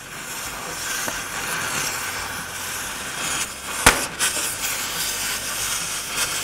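Oxy-acetylene cutting torch hissing steadily as it cuts through rusted steel bumper bracket. One loud sharp pop comes about four seconds in, with a few smaller pops just after it: rusted metal popping and throwing sparks as the cut begins.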